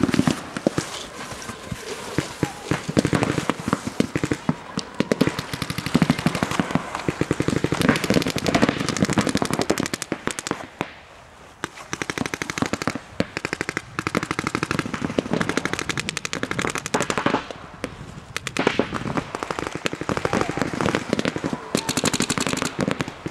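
Rapid fire from several paintball markers: rattling strings of shots that overlap almost without pause, with a brief lull about halfway through.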